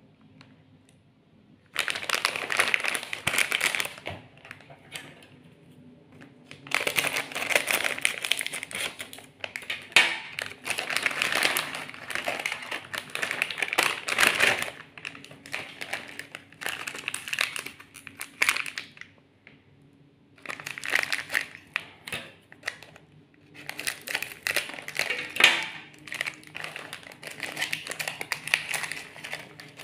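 Plastic snack wrappers crinkling in repeated bursts with short pauses: a Deka Crepes multipack bag being emptied, then an individual wafer pack being pulled open near the end.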